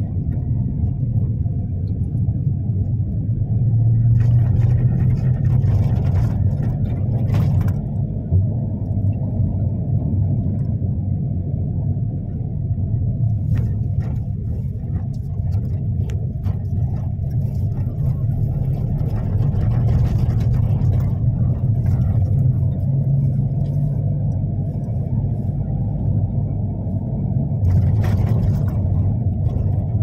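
Steady low rumble of a moving vehicle's engine and tyres, heard from inside the cabin. A brief hiss rises over it about four seconds in and again near the end.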